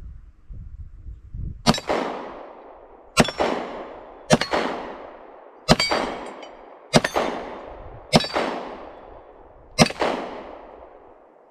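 Seven 9mm shots from a Taurus PT1911 pistol at an uneven pace, roughly one every second and a half. Each shot is followed by a ringing steel target that dies away.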